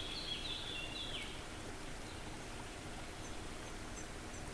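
Faint background hiss with a short run of high, stepped chirping notes in the first second or so, then a few tiny high chirps near the end.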